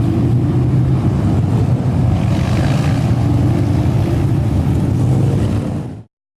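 Loud, steady rumble of motorcycle engines running, cutting off suddenly near the end.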